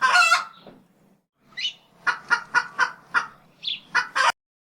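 A chicken squawking and clucking: a loud squawk at the start, then a run of sharp clucks about four a second with two rising squawks among them. It cuts off suddenly near the end.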